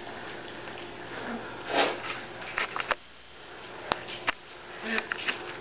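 Puppies sniffing and licking at yogurt paint on paper sheets, with scattered small clicks and crinkles from paws and noses on the paper. The loudest sound is a short, noisy sniff about two seconds in.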